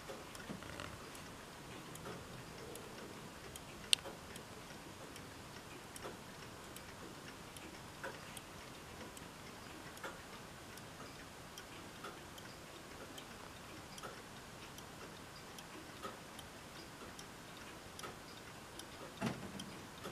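Junghans ATO battery-powered pendulum clock running, a faint steady ticking with a clearer click about every two seconds. A sharper click comes about four seconds in and a soft thump near the end.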